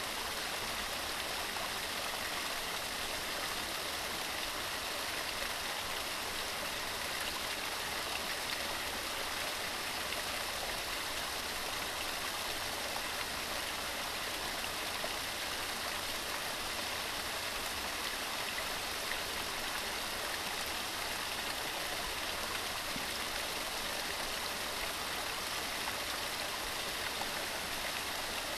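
Waterfall: water falling and splashing in a steady, even rush that never lets up.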